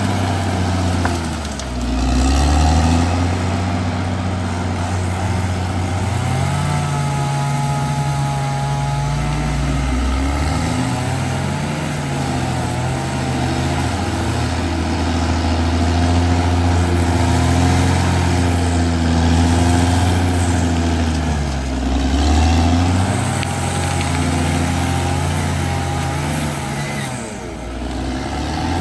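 Caterpillar D6R XL bulldozer's diesel engine working, its note rising and falling several times as the revs change under load. A wavering higher whine rides over it for a few seconds about a third of the way in.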